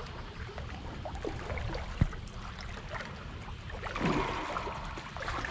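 Sea water sloshing and gurgling among the tetrapods, with a single sharp knock about two seconds in and a brief louder sound about four seconds in.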